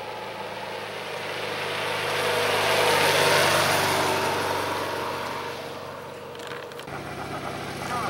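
A 2009 Honda DN-01 motorcycle's V-twin engine passing by. It grows louder to a peak about three seconds in, then fades as it moves away. Near the end the sound cuts to another motorcycle's low, steady engine note, a Harley-Davidson Street Glide's V-twin.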